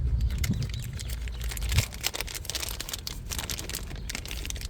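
Scattered small clicks and rustles of hands handling a plastic microswitch and its wiring connector, over a low background rumble.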